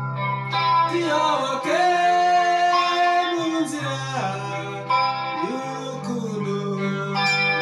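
Music: an electric guitar playing a melody with held notes that slide in pitch, with singing in the mix.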